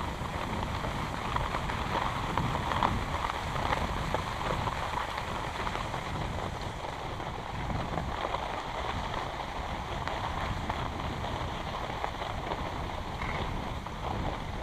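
Skis sliding over packed snow while being towed up a button drag lift: a steady crackling scrape, with low wind rumble on the microphone.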